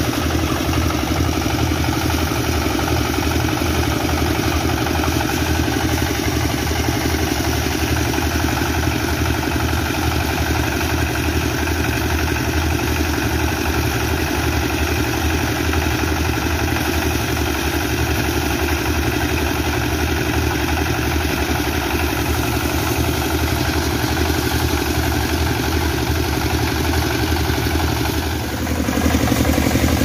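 Small horizontal single-cylinder diesel engine running steadily under load while driving a rice threshing machine, with the thresher drum rattling. Near the end the sound dips briefly, then comes back slightly louder.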